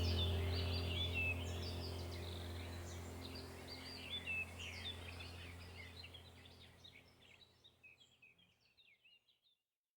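Many small birds chirping and twittering over a steady low hum, the whole fading out to silence over about eight seconds.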